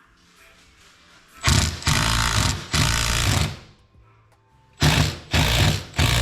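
Cordless impact driver running in short rattling bursts while driving fasteners: three bursts about a second and a half in, a short pause, then three more near the end.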